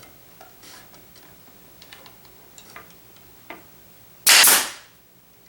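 Nail gun firing a single nail into thin wood: one loud, sharp shot about four seconds in that dies away within half a second, after a few soft clicks of the tool and wood being handled.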